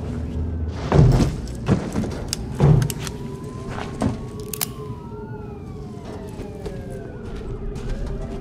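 Several heavy thuds in the first four seconds. From about five seconds in, several sirens wail with pitches gliding up and down, over a steady low hum.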